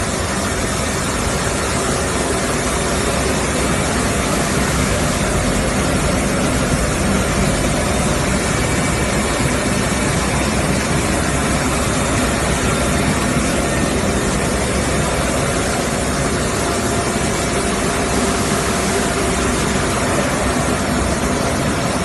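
Waste medical blister aluminium recycling machine running steadily with a loud, even mechanical noise as it grinds and separates the material.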